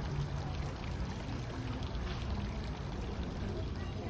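Steady splash and trickle of a fountain's water falling into its stone basin.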